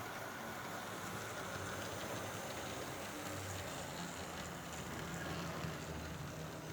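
Steady rain falling: an even hiss with a low hum underneath.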